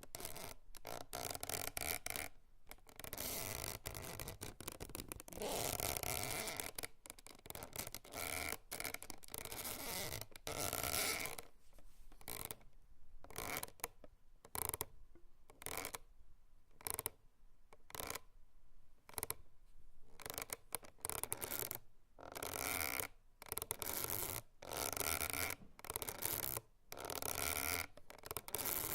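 Hemp rope creaking: a long series of irregular short creaks with short gaps between them, some with a faint squeaky tone.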